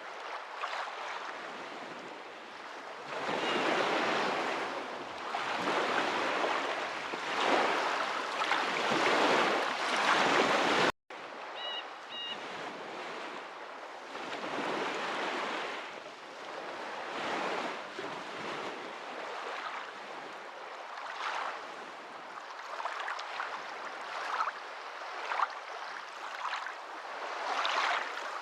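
Water sound of waves washing in slow swells. Near the middle it cuts out for an instant, then returns as softer, more irregular lapping.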